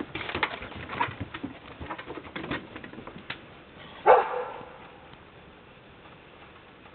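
Rottweiler barking: softer short barks in the first few seconds, then one loud bark about four seconds in.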